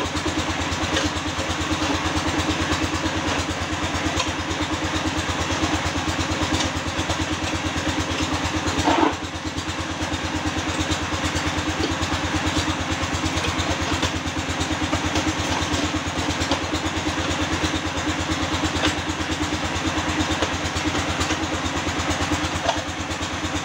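Concrete pan mixer running steadily with a fast, even mechanical pulse, churning a batako mix of sand, cement and coral-stone waste. There is one louder knock about nine seconds in.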